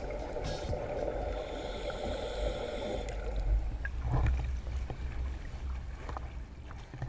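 Water sloshing around the camera at the surface, with a few splashes about four seconds in, over the low steady hum of the dive boat's engine.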